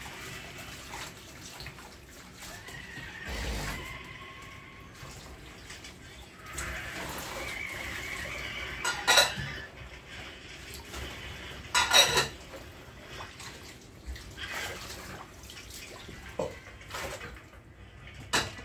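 Cutlery clinking against dishes during a meal: a few sharp clinks, the loudest about nine and twelve seconds in and another near the end.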